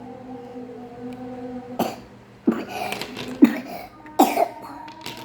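A child with a cough coughing about four times, the coughs coming roughly a second apart from near the middle onward.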